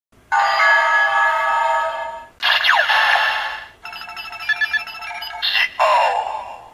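Electronic sound effects from a Kamen Rider Zi-O Ridewatch Memorial Ver toy: a held synth chord for about two seconds, then a whooshing burst with falling tones, a stuttering run of short beeps, and a final downward swoop.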